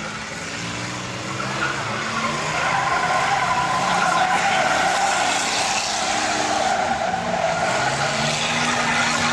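Car tyres squealing through long skids as cars are driven hard around an arena, with engines revving underneath; the squeal grows louder a couple of seconds in.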